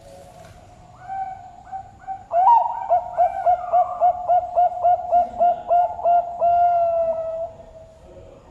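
Zebra dove (Bangkok perkutut) cooing its song. It starts with a few soft coos, then a quick run of about a dozen pulsed notes, about three or four a second, and ends in one long drawn-out note.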